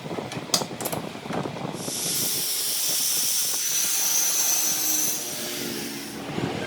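A few sharp metallic taps and knocks, then a loud steady hiss that starts about two seconds in and cuts off about four seconds later.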